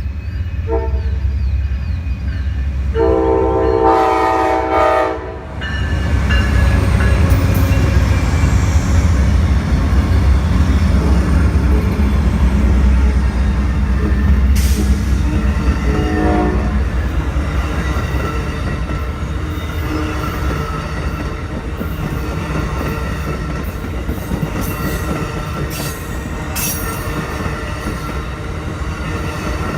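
Train horn sounding a short blast, then a longer blast of about two seconds, then a brief toot later on, over the loud rumble and wheel clatter of a train passing close by with some high wheel squeal.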